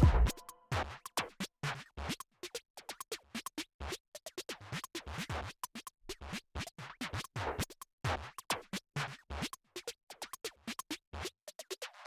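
Background music in a sparse percussive stretch: quick clicky, scratchy hits with occasional low thumps, right after a louder melodic passage cuts off.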